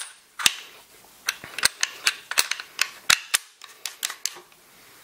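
Sharp metal clicks and clacks of a Mossberg 500 shotgun's bolt, bolt slide (action bars) and fore end being fitted into the receiver and slid by hand: about a dozen irregular clicks that stop after about four and a half seconds.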